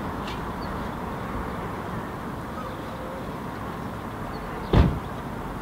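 Steady rumble of city traffic noise, broken about three-quarters of the way through by a single sudden loud thump.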